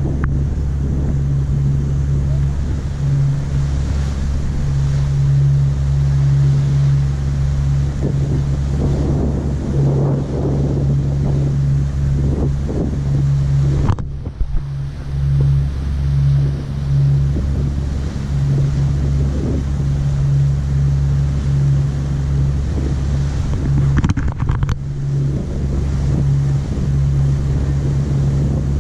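Passenger ferry's engines running with a steady, deep drone, with water rushing in the wake and wind buffeting the microphone.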